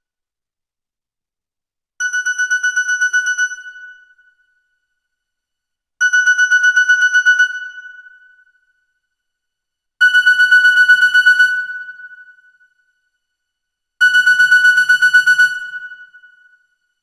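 Nokia N91 ringtone: a fast trilling electronic ring at one pitch, repeated four times about every four seconds. Each ring lasts about a second and a half and fades out, with silence between them. The rings get louder over the first three, and a lower buzz joins the last two.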